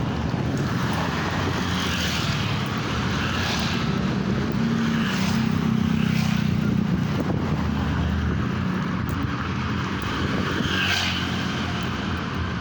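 A motor vehicle's engine running steadily under road and wind noise, a little louder around the middle.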